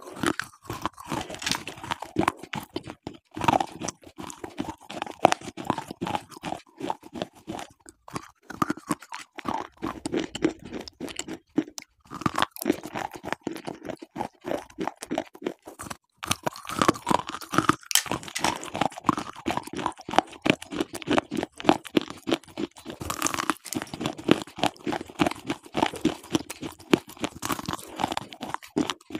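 Slate pencil sticks bitten and chewed: a continuous run of crisp crunches, thinning out for a few seconds about a third of the way through.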